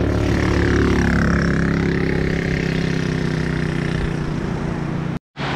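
Quad bike (ATV) engine running as it drives across the sand, its pitch dipping and rising about a second in and the engine sound fading after about four seconds, over a steady wash of surf and wind.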